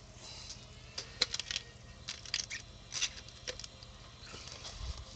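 Crinkling and clicking of packaging being handled, a run of short crisp crackles, with a soft low bump near the end.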